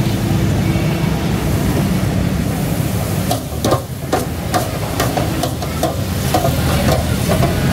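Potato fries sizzling in hot oil in a deep fryer's wire basket. From about three seconds in the basket is lifted and shaken out, its wire mesh clinking and knocking against the steel fryer several times.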